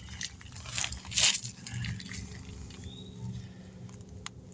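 Short rubbing and scraping from a hand working over a rubber tire, with two brief bursts about a second in and a sharp click near the end, over a steady low hum.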